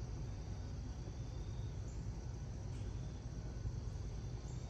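Outdoor background: a steady low rumble with a faint, steady high drone of insects over it.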